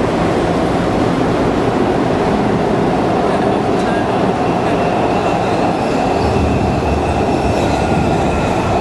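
Washington Metro (WMATA) subway train arriving at an underground platform: a loud, steady rumble of the train on the rails. A thin high tone joins about four seconds in, and the low rumble grows heavier near the end as the front car comes alongside.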